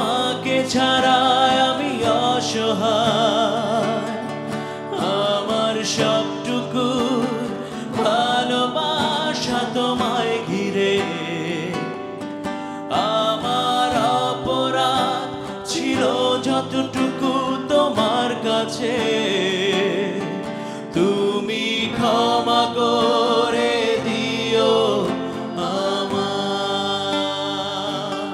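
Live acoustic performance of a Bengali ballad: a singer holding long, wavering notes over strummed and picked acoustic guitars.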